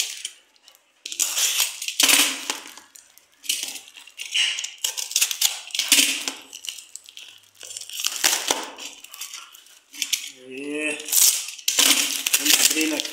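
Plastic stretch wrap and a cardboard package being slit with a utility knife and torn open by hand: crinkling and ripping in short, irregular bursts.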